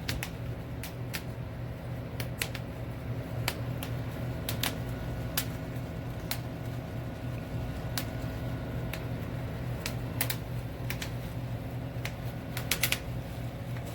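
Bubble wrap being handled and popped: irregular sharp pops and crackles, some in quick clusters near the end, over a steady low hum.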